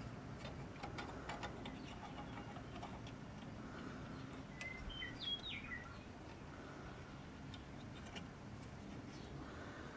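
Quiet, scattered light metallic clicks as small drum-brake parts (the shoe's parking-brake lever, spring and clip) are handled and fitted by hand. A short bird chirp about five seconds in.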